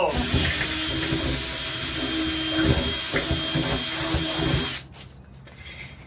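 Cordless drill with a twist bit boring a hole through the side wall of a refrigerator, running steadily with a faint high whine, then stopping a little before five seconds in.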